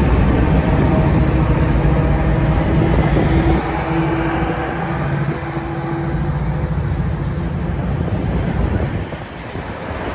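Diesel-electric freight locomotives passing close by, their engines running with a deep drone and a steady hum. About three and a half seconds in, the engine sound drops away, leaving the rumble of autorack freight cars rolling over the rails.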